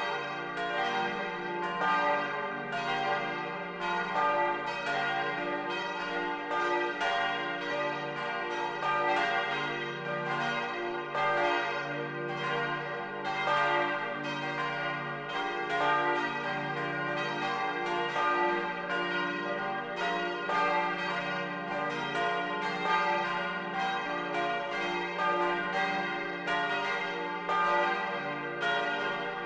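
Four bronze church bells tuned d', f', g' and b', cast in 1950 by Junker of Brilon, ringing together in full peal, heard from inside the bell tower: a continuous stream of overlapping strikes over a long-sustained ringing hum.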